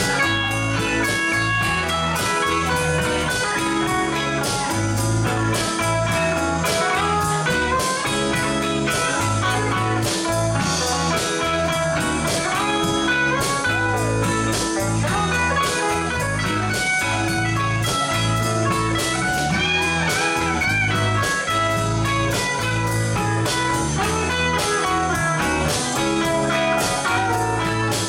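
Live rock band playing: electric guitars, electric bass, keyboard and drums, with a steady beat and a pulsing bass line.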